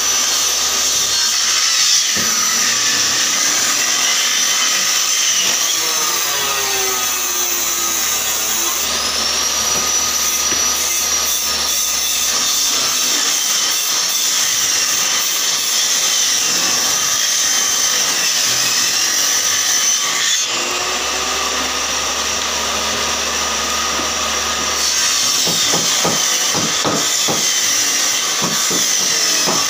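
Table saw running and ripping wooden boards into strips, its whine dipping and rising in pitch as cuts go through, with a few knocks of boards being handled near the end.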